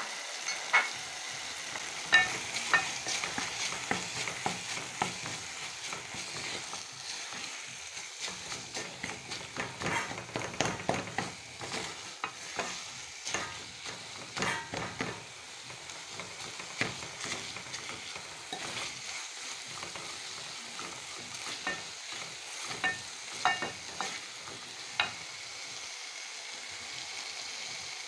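Beef, tomato and green pepper stew frying with a steady sizzle in a metal pot while a cooking spoon stirs and scrapes through it, with sharp, irregular knocks of the spoon against the pot.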